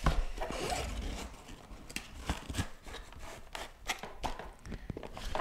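Cardboard chemistry-kit box being closed and handled on a table: the lid flaps scraping shut, with a scatter of light taps and knocks.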